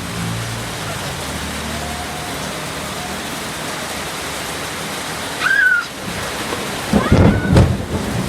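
Steady heavy rain falling, with a brief voice-like sound about five and a half seconds in and louder sounds near the end.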